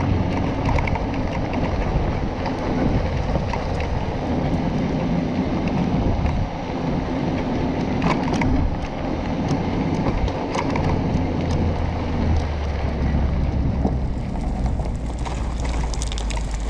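Motoland XR250 Enduro dirt bike being towed slowly over a gravel road: tyres crunching on loose stones with scattered ticks of gravel, over a steady low engine hum that drops lower about twelve seconds in.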